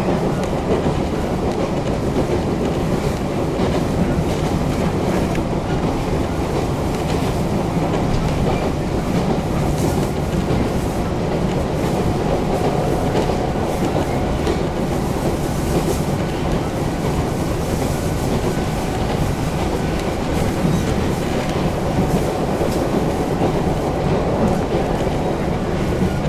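Toyama Chihō Railway electric train running at speed, heard from inside the passenger car: a steady rumble of wheels on rails with scattered clicks. A faint brief whine rises out of it about halfway through.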